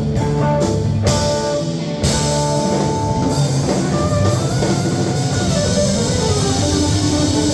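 Live band playing with guitar and drum kit, a loud drum hit about two seconds in.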